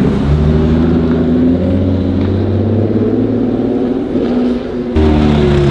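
Loud sports-car engine running at a low, fairly steady pitch that wavers a little, with an abrupt cut to a similar engine note about five seconds in.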